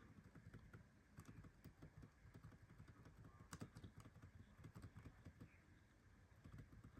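Faint, rapid tapping on a laptop keyboard key, pressed over and over at power-on: the F2 key being hit repeatedly to get into the BIOS.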